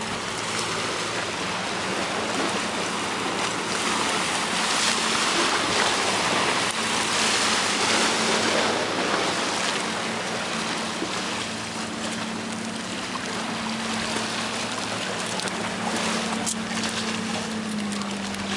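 Wind and surf hissing along a granite breakwater, swelling for a few seconds and then easing, over a low steady engine hum that dips slightly in pitch near the end.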